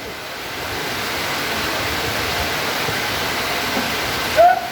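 Heavy rain pouring down steadily, an even hiss. Near the end a brief loud pitched sound cuts in.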